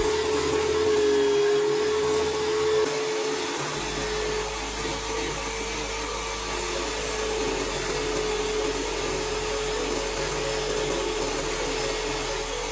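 A fan-driven electric tool running steadily: a rushing-air hiss over a constant high hum, with a low rumble joining about four seconds in.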